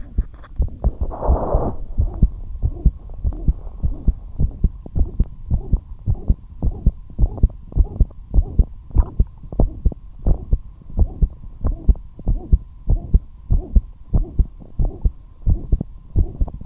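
Human heartbeat recorded close up: a fast, regular lub-dub of low thumps, quickened even at rest, which the uploader presents as a heart murmur. A brief scratchy noise sounds about a second in, and a faint steady hum runs under the beats.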